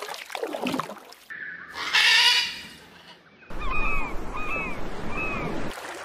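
Waterfowl calling: one loud, harsh honk-like call about two seconds in, then a run of about five short calls that rise and fall in pitch.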